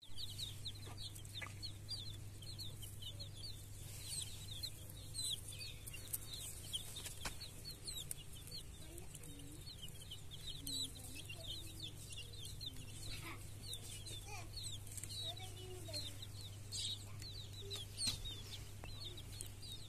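Baby chicks peeping: many short, falling cheeps overlapping several times a second, over a steady low hum.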